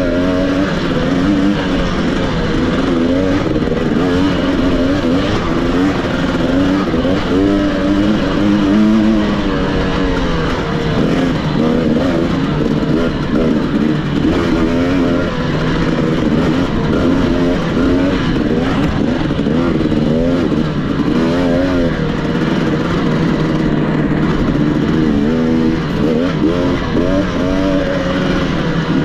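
Engine of an off-road racing machine under race load, its pitch rising and falling continually as the throttle is opened and closed through the course.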